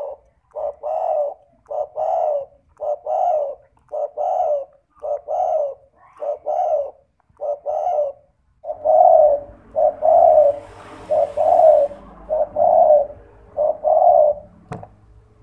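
Spotted dove (derkuku) cooing steadily: repeated two-part coos, a short note followed by a longer one, at about one pair a second. About halfway a low hum comes in behind the coos, and a single sharp click sounds near the end.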